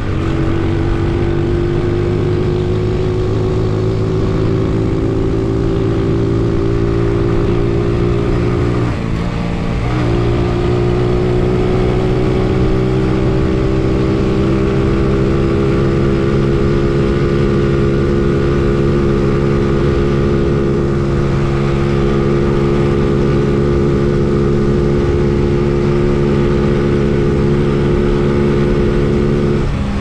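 Honda C70's small single-cylinder four-stroke engine running under way, its pitch climbing slowly as the bike gathers speed. About nine seconds in the sound drops briefly, as at a gear change, then climbs again, with another short break near the end.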